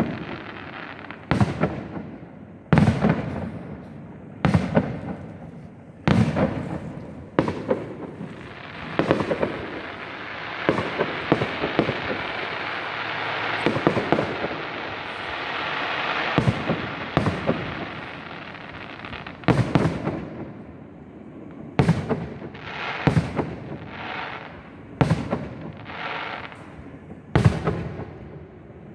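Fireworks display: aerial shells bursting with sharp bangs every second or two, and a long stretch of dense, continuous crackling in the middle before the single bangs resume.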